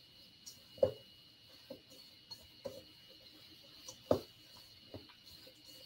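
A silicone spatula stirring and folding a thick muffin batter with diced strawberries in a stainless steel mixing bowl: soft, irregular knocks and scrapes against the bowl, about six of them, the loudest about four seconds in.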